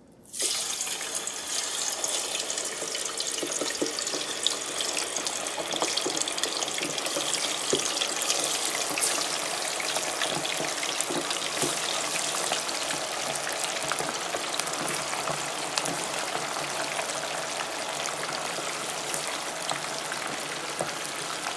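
Chicken wings deep-frying in a pot of hot oil: a steady sizzle with dense crackling from the bubbling oil, starting abruptly just after the start.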